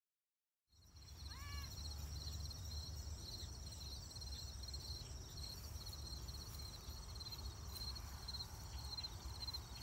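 Insects chirping in a steady, high, pulsing trill, with one short bird call about a second in, over a low rumble. The sound comes in abruptly after a moment of silence.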